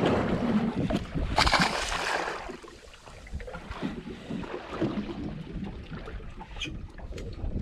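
Water splashing as a released trevally kicks away from the side of the boat, loudest about a second and a half in, then water lapping against the hull with wind on the microphone.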